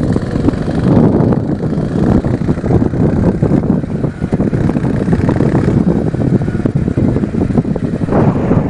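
A mini bike's small engine running while it is ridden, mixed with heavy wind buffeting on the microphone: a loud, steady, rough rumble.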